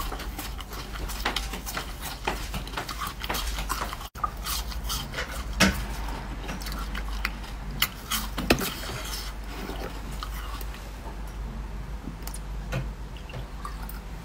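Close-up biting and crunching of a piece of purple ice: sharp cracks and crunches at irregular intervals, the loudest bites about five and eight seconds in.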